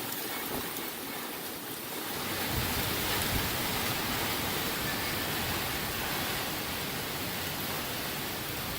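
Heavy rain pouring down in gusty storm wind, a steady hiss that grows louder about two seconds in, with low rumbles of wind gusts from then on.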